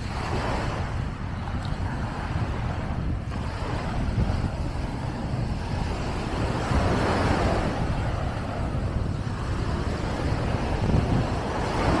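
Sea waves washing up on the beach, swelling and fading, with steady wind rumble on the microphone.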